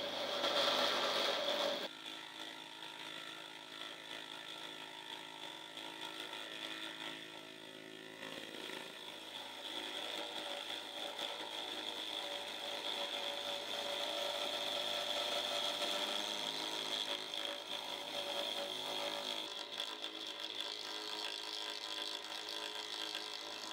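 Shapeoko 2 CNC router milling a wooden block: the Inventables 400-watt quiet spindle runs with a steady high whine over lower steady tones as the end mill takes shallow cuts. It is louder for the first two seconds, then drops suddenly and continues steadily.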